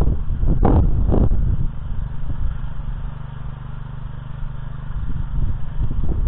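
Small petrol engine of a walk-behind tractor (motoblock) running steadily under load while cultivating soil. Two short clattering knocks come about a second in.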